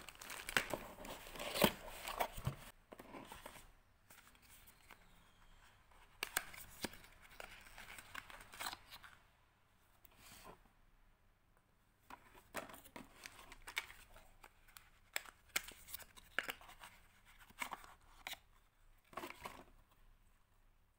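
Packaging or paper being handled: crinkling and tearing, densest in the first few seconds, then scattered short rustles and clicks.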